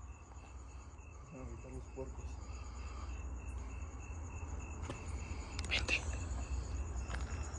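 Crickets chirping in a steady, even pulse over a low rumble, with a few faint knocks about five to six seconds in.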